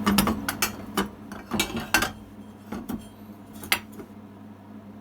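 Small metal parts and copper wire being handled, clinking and knocking against each other: about a dozen sharp clinks over the first four seconds, then only a steady low hum.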